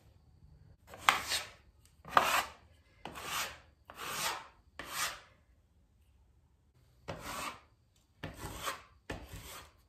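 A plastic scraper scraping across a flaking old plaster wall, about eight short strokes in two runs with a brief pause in between.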